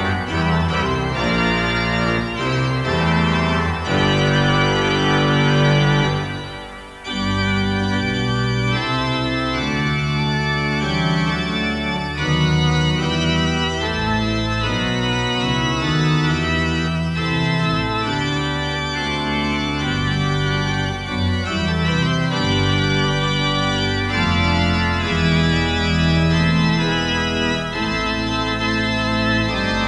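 Organ music playing sustained chords that change every second or two, dipping briefly about seven seconds in before going on.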